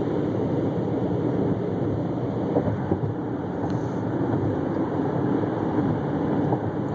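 Steady road and engine noise of a car in motion, heard from inside the cabin.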